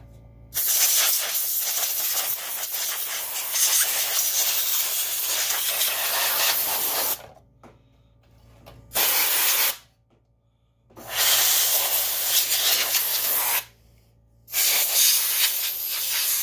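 Low-pressure compressed-air blow gun, regulated to 10–15 PSI, blowing dust out of an opened video projector. It hisses in four blasts: a long one of about six seconds, a short one, then two of about three seconds, with quiet gaps between.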